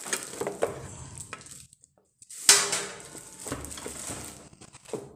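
Plastic wrapping crinkling and rustling as plastic-wrapped food processor parts are handled and lifted from a moulded pulp tray, with small clatters of hard parts knocking together. The loudest rustle comes about two and a half seconds in, just after a brief pause.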